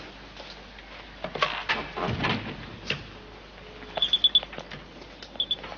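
Telephone handset picked up with some knocking and rustling, then the phone's dial clicking back in quick runs of short high ticks: four about four seconds in, two more near the end.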